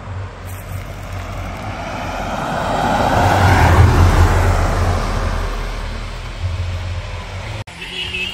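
A white compact SUV driving past close by on the road: its tyre and engine noise swells as it approaches, is loudest about four seconds in, then fades away as it leaves.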